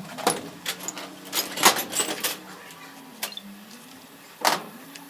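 Scattered metallic clinks and knocks, about eight of them, from tools and parts being handled during work on a truck's front axle and differential, over a low, wavering hum.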